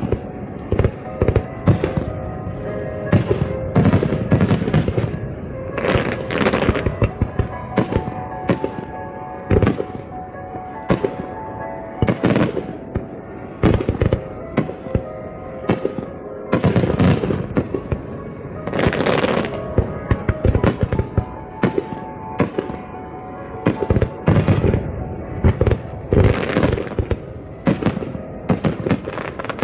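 Aerial fireworks shells bursting in a rapid barrage, with many sharp bangs in clusters and crackling after some of them, over music from loudspeakers.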